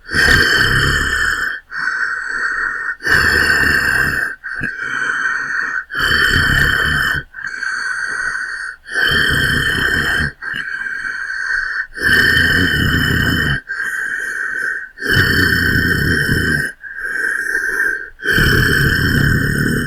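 Hulk-style angry growl sound effect: a rough, breathy monster growl repeated about thirteen times, each growl about one and a half seconds long with a brief break between them.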